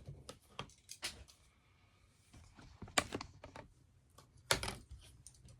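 Leather being cut by hand with a knife on the workbench: faint scattered clicks and scrapes, with sharper knocks about one, three and four and a half seconds in.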